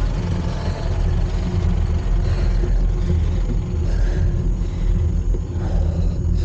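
Steady wind rumble buffeting a ride camera's microphone while cycling at speed, with road noise from traffic.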